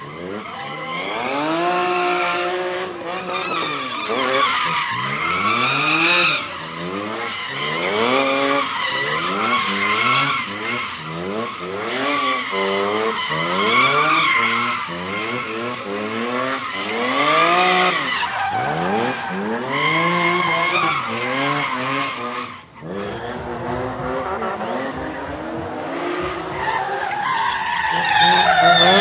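BMW 3 Series drift car engine revving up and down again and again as the car slides, with tyres squealing and skidding. Near the end two cars drift together and the engine and tyre noise grows louder.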